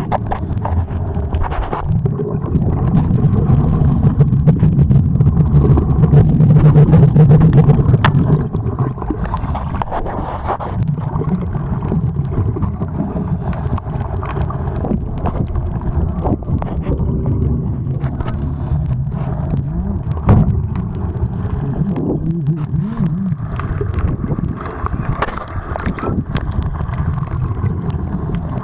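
Underwater rumbling and bubbling picked up by a diver's camera, louder from about two to eight seconds in with a faint high hiss over it, and one sharp knock about twenty seconds in.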